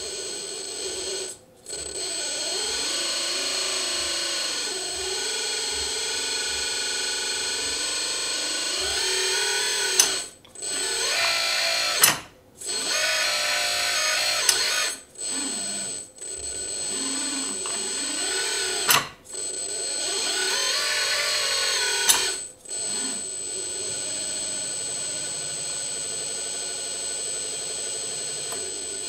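Electric hydraulic pump of a 1/16 Kabolite 336 RC excavator whining steadily as the boom, arm and bucket cylinders move, its pitch bending as the load changes. It cuts out briefly about six times, with a sharp click at several of the stops and starts.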